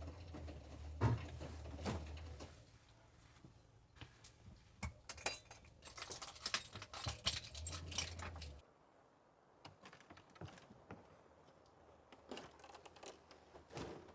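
Handling knocks and clicks, then a few seconds of jingling and clinking of small metal objects, with a low hum under the start and again just before the jingling stops.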